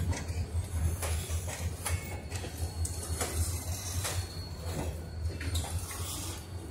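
Freight cars rolling past: a steady low rumble with repeated clanks and clicks of wheels and couplers, and now and then a brief thin squeal.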